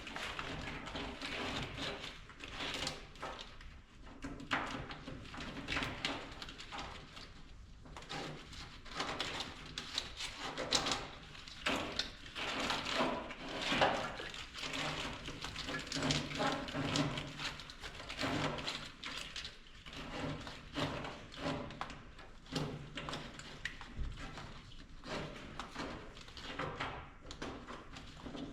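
Irregular rustling, clicking and scraping of hands working a wiring harness and its plastic clips loose around an engine.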